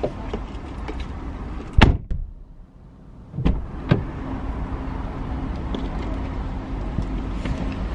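Car door slammed shut about two seconds in, then two more clunks from the door a second and a half later. After that a steady low hum runs on.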